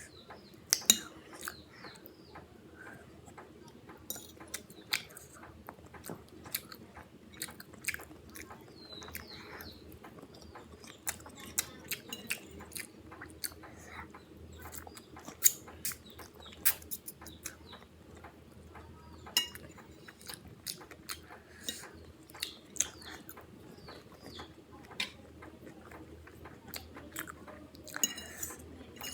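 Close-miked eating: wet chewing and lip smacking with scattered sharp clicks, as a mouthful of chow mein or fried rice is chewed.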